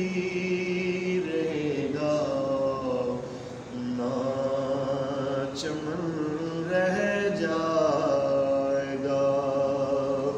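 A man's solo voice singing an Urdu devotional kalam without accompaniment, in long drawn-out phrases that hold and bend each note. There is a short breath pause about four seconds in.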